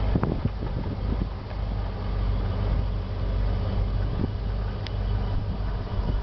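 An RV's engine idling steadily, heard from inside the vehicle as a low, even hum, with a few faint knocks.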